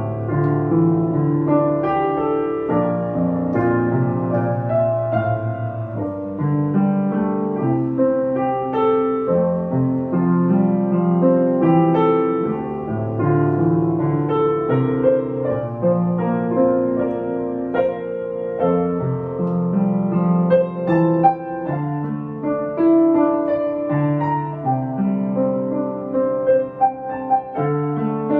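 Schimmel upright piano being played, a continuous run of notes with melody and accompaniment in both hands.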